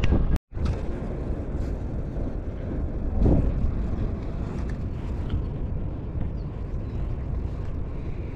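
Wind buffeting the microphone in a steady low rumble, with a stronger gust about three seconds in. The sound cuts out for a split second near the start.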